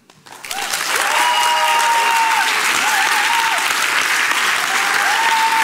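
Audience applauding at the end of a talk, starting about half a second in and quickly building to full, with a few long held high notes from the crowd over the clapping.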